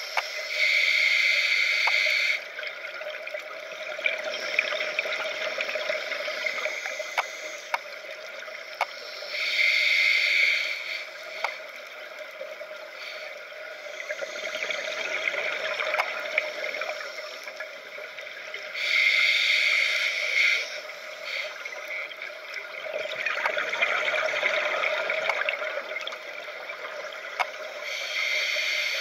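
Scuba diver breathing through a regulator underwater: a sharp hiss from the demand valve on each inhale, about every nine to ten seconds, each followed a couple of seconds later by a longer burble of exhaled bubbles. Faint sharp clicks are scattered throughout.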